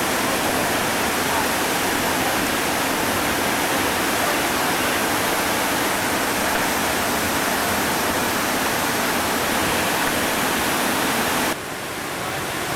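Steady rushing roar of a high-water whitewater rapid, an even wash of noise; about eleven and a half seconds in it drops suddenly to a slightly quieter level.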